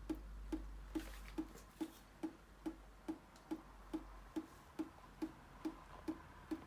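Water tap dripping in an even rhythm, about two drops a second, each drop a short pitched plop.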